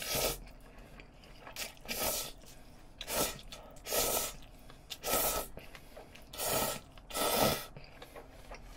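Bibim-myeon noodles being slurped up from chopsticks: a run of about seven short noisy slurps, roughly one a second.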